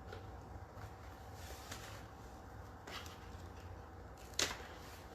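Handling noise as display boards are moved on a desk: a few light knocks and taps over a low steady hum, the loudest a sharp knock about four seconds in.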